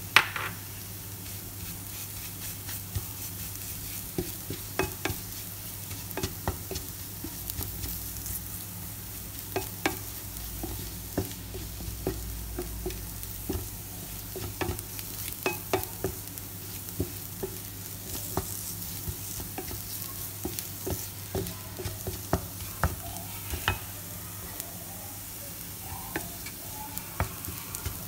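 Sambal chili paste sizzling in a nonstick frying pan while a wooden spatula stirs it, with frequent light scrapes and taps of the spatula against the pan.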